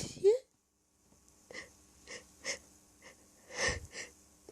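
A person's short, breathy gasps after a sneeze whose tail ends the very first moment. The gasps come about every half second to second after a brief pause, the loudest one about three and a half seconds in: the heaving breaths of an allergy attack with another sneeze building.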